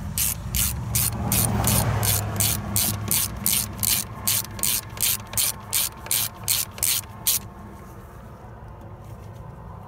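10 mm socket ratchet clicking in quick, even back-strokes, about three a second, as it runs down a bolt on the A/C hose fitting on the compressor. The clicking stops about seven seconds in.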